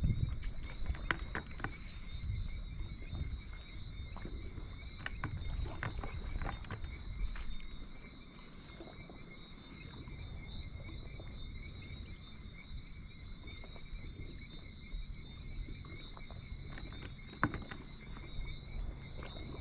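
Low rumble of water and wind at a concrete seawall, with scattered small clicks of handling. Over it runs a steady high-pitched trill on two notes.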